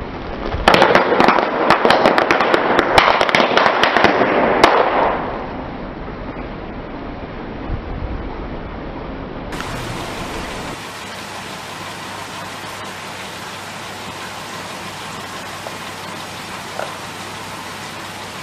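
Car tyre rolling over a row of plastic-wrapped candy packets, crushing them with a burst of crackling and popping that lasts about four seconds. A steady low hiss follows.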